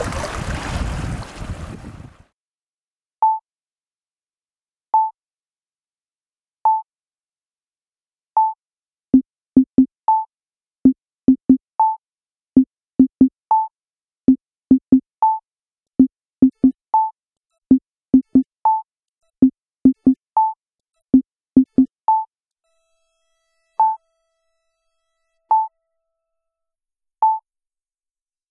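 Water lapping for about two seconds, then it cuts to an electronic music track: a single synth note about every 1.7 seconds, joined about nine seconds in by pairs of lower notes that drop out about 22 seconds in.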